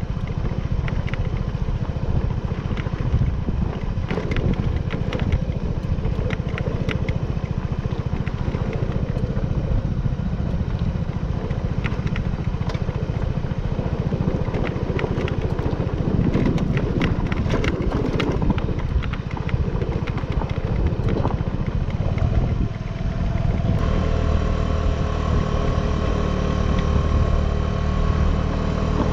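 Suzuki Burgman 200 scooter's single-cylinder engine running at low speed over a rough, bumpy dirt road, with frequent clatters and rattles from the bumps. Near the end the engine settles into a steadier, more even note.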